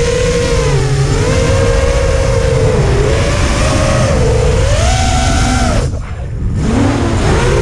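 FPV freestyle quadcopter's brushless motors whining, the pitch rising and falling with throttle changes, with a low rumble underneath. About six seconds in the whine drops away briefly, as on a throttle cut, then picks up again.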